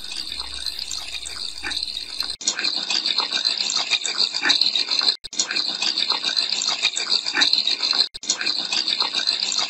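Steady rushing hiss of running tap water, used as the white-noise source for a spirit-box session. About two seconds in the deepest and highest parts drop away, and it cuts out for an instant twice.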